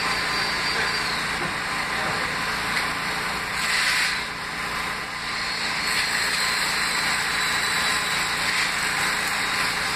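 R160 subway train running on into the distance: a steady rumble with a thin high electric whine that drops in pitch about a second in and climbs again later, and a short hissing surge about four seconds in.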